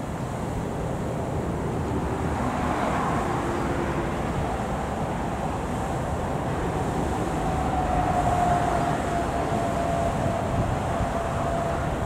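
Water pouring over a weir spillway and churning in the pool below: a steady, even rush of white water.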